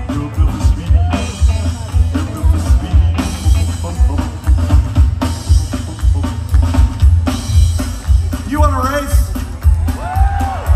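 Live rockabilly trio playing loud through a PA: drum kit and upright bass drive a steady fast beat under electric guitar, with a few wavering, bending notes near the end.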